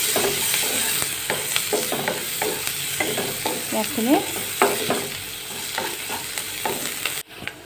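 Chopped onions sizzling in butter in a kadai while a wooden spatula stirs them, scraping and knocking against the pan. The sizzle cuts off abruptly near the end.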